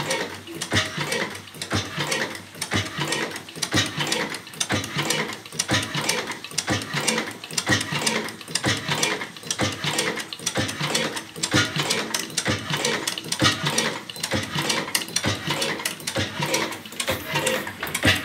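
1912 Hornsby hot-bulb oil engine running steadily: a continuous mechanical clatter of quick, even clicks and knocks from its moving parts.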